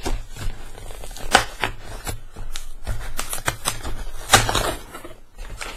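Parcel packaging being opened and handled by hand: a busy run of irregular crackles, clicks and rustles, with the loudest snaps about a second and a half in and a little past four seconds.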